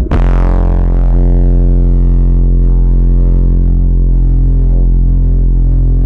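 Very deep bass drone sound effect that starts abruptly, then holds as a steady, loud, buzzy low tone with many stacked overtones. A bright hiss at the onset fades away over the first second.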